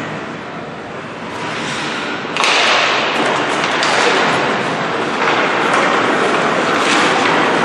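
Ice hockey play in a rink: skate blades scraping across the ice, with sticks and puck clacking, the noise growing louder and busier about two seconds in as play picks up.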